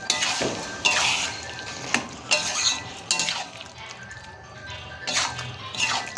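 A metal spoon stirring and scraping chickpeas and potatoes in gravy in a kadai, about six separate strokes, with background music.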